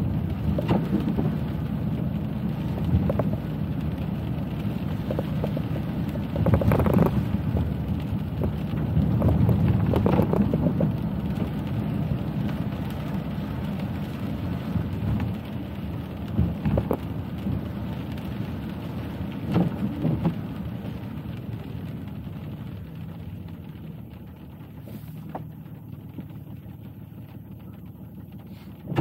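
A car driving on wet streets in the rain: a steady low rumble of road and engine noise with rain, and several louder swishing swells as tyres or passing traffic go through the wet. It grows quieter for the last few seconds.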